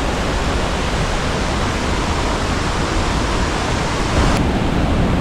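Steady rushing of a river and waterfall, a loud even hiss; the higher part of the hiss drops away suddenly about four seconds in.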